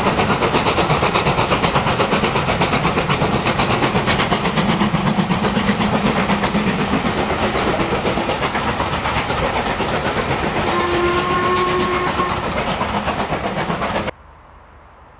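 LMS Black Five steam locomotive 45379 passing at speed, its exhaust beating in a rapid, steady rhythm that weakens as the coaches roll by behind it. A short two-note steam whistle sounds about eleven seconds in. Near the end the train sound cuts off abruptly to faint outdoor background.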